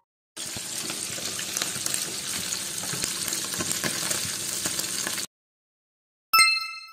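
Food frying in hot oil: a dense crackling sizzle for about five seconds that cuts off suddenly. Near the end, a short bright chime rings and fades.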